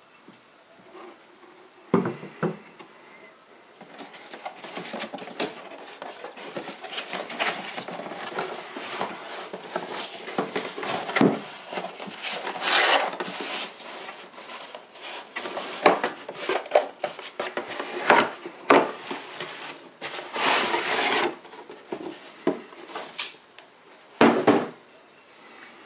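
Handling noise of drilled and slotted brake rotors and their cardboard boxes on a table: cardboard and paper packaging scraping, sliding and rustling, with sharp knocks about two seconds in and near the end as a metal rotor is set down or picked up.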